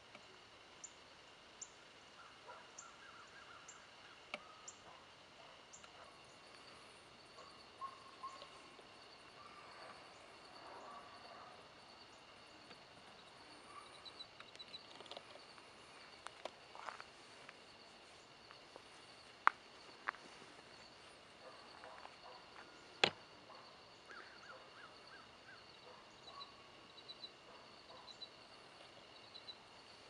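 Faint dawn ambience: a steady high-pitched insect chorus with scattered short bird chirps and calls. Two sharp clicks stand out, one a little past the middle and one a few seconds later.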